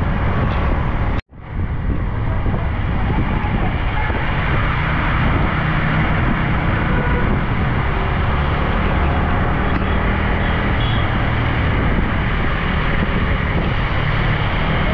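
Steady rush of wind and road noise from a moving motorcycle on a wet road, with the engine running underneath. The sound cuts out abruptly for a moment about a second in, then comes back.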